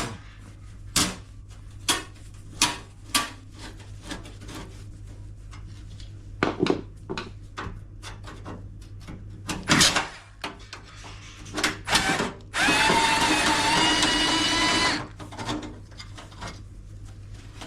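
Scattered clicks and knocks of tools and metal panel parts being handled. Near the end, a cordless screwdriver runs for about two seconds with a steady whine, as it works on a rusty screw on the washing machine's casing.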